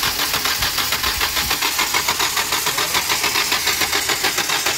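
Starter motor cranking a Hyundai Verna four-cylinder common-rail diesel engine, which does not fire, in an even, rapid beat. The injector connections are opened and the engine is being turned over to bleed air out of the injectors.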